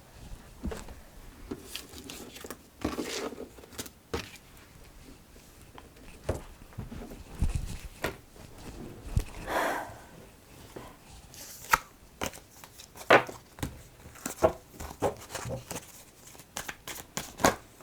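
Tarot cards being gathered up and handled: irregular rustling, sliding and light clicks of card stock, thickening into a quick run of clicks near the end.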